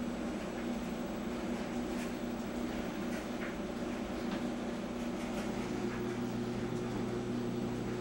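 Clothes dryer running: a steady mechanical hum with a few faint ticks, and a lower hum joining in about halfway through.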